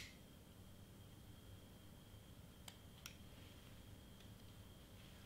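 Near silence: room tone with a faint steady high whine, a sharp click at the very start and two faint clicks about three seconds in.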